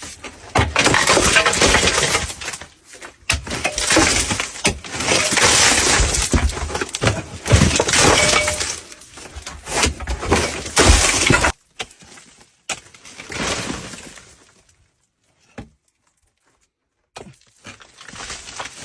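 Coal breaking and falling: a loud, dense run of crashing and crackling impacts for about eleven seconds, then a few fainter falls, a pause and a faint return near the end.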